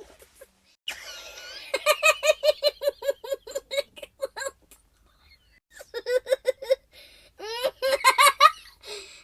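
A young child laughing in runs of rapid, evenly spaced giggles, three runs with short pauses between them, the first and longest about two seconds in.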